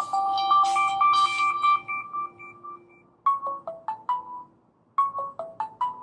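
Ringtones of a Samsung Galaxy Ace 2 playing from the phone's speaker. One electronic melody fades out about halfway through, then a new ringtone starts: a short phrase of quick notes that plays twice.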